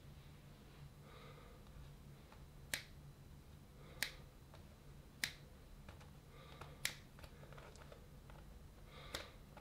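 Scissors snipping through the vinyl of an inflatable while cutting out its old inflation valve: five sharp snips, irregularly spaced a second or two apart, over a faint steady low hum.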